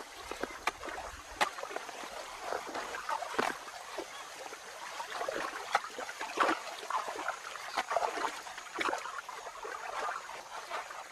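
Water splashing and sloshing, with a steady wash of water noise broken by many sudden sharp splashes.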